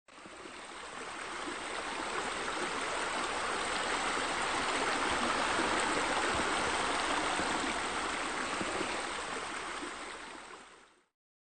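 Steady rushing, splashing water that fades in over the first couple of seconds and fades out just before the end.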